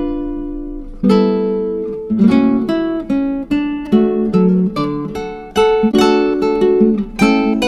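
Background music on acoustic guitar. A chord rings out and fades over the first second, then a steady run of plucked notes and strummed chords follows.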